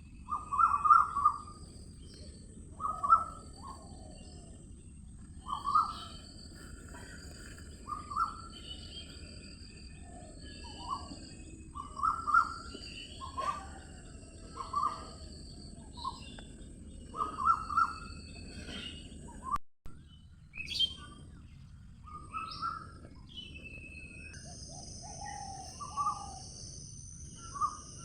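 Birds calling and chirping, one short call repeating every second or two, over a steady high hiss and low background noise, with a brief cut about two-thirds through.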